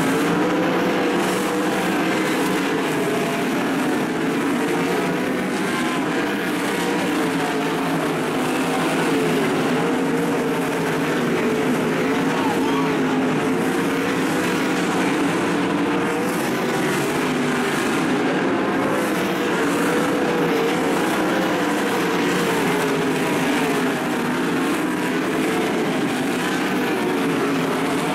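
A field of 410 winged sprint cars racing on a dirt oval, their 410-cubic-inch V8 engines running together at full noise, the pitch rising and falling as the cars go around the track.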